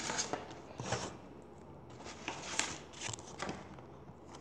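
Pages of a picture book being turned and handled: several soft paper rustles and light taps.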